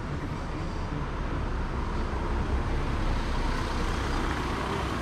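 A taxi car driving past close by in a narrow street, its engine and tyre noise swelling in the middle, over general city street noise.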